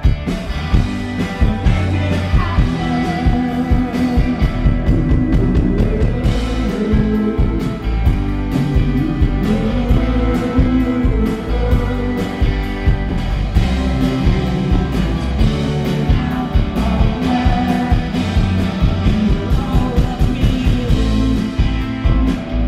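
Live rock band playing: electric guitars, bass, drums and keyboard with a steady beat, and a lead voice singing over it.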